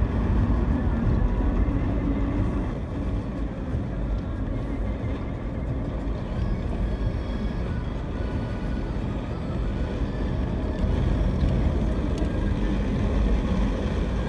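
Steady low rumble of a car driving along a paved road, engine and tyre noise heard from inside the vehicle.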